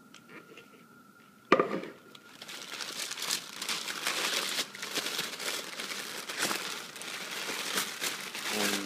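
A sharp knock about a second and a half in, then packing wrap crinkling and rustling by hand without a break as mixer parts are unwrapped.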